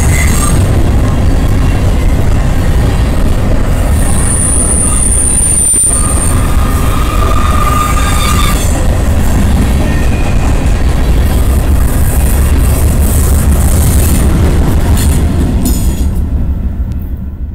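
Freight train of covered hopper cars rolling past close by: a loud, steady rumble of wheels on rail, with two brief high-pitched wheel squeals partway through. The rumble dies away near the end as the last car passes.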